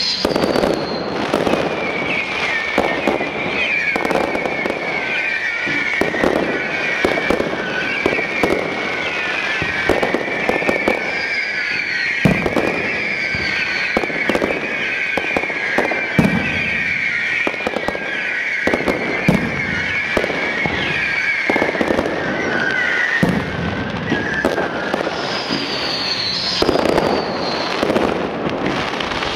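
Fireworks display: a rapid, unbroken run of bangs and crackling, with a shrill, wavering whistle running over it from about two seconds in until a few seconds before the end, and short falling whistles near the start and again near the end.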